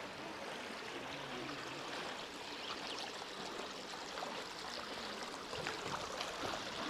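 Shallow stream trickling and babbling over rocks, a steady light water sound.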